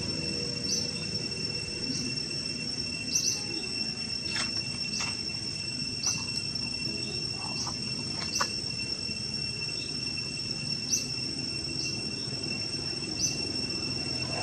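Insects in the background: a steady high-pitched buzz, with short high chirps every second or so and a few faint clicks.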